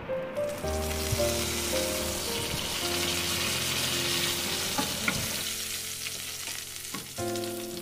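Fresh curry leaves sizzling in hot coconut oil with mustard seeds: a tempering (tadka) being fried in a pan. The sizzle starts suddenly as the leaves go in, with a few sharp pops, and eases off near the end. Soft background music plays underneath.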